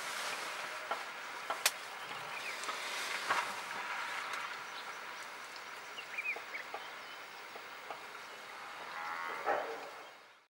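Cape buffalo wading across a river: a steady wash of water noise with splashes, scattered clicks and a few short bird chirps, and a buffalo's low call near the end before the sound fades out.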